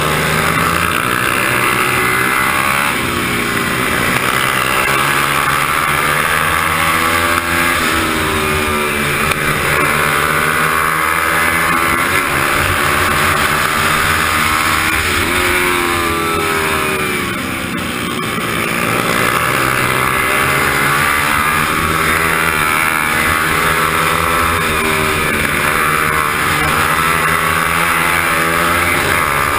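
Onboard sound of a racing motorcycle's engine revving up and falling back again and again through the gears, over a steady rush of wind. About halfway through the revs drop away for longer before climbing again.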